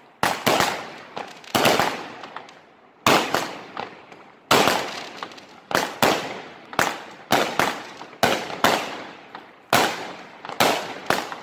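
Aerial fireworks launching and bursting overhead: a rapid, irregular series of sharp bangs, often in close pairs, one to three a second, each with a short dying tail.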